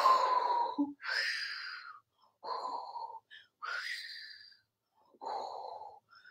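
A woman's voice imitating snowstorm wind with breathy 'hoooo-woooo' sounds, three times over. Each is a low breathy hoot followed by a higher, hissing whoosh.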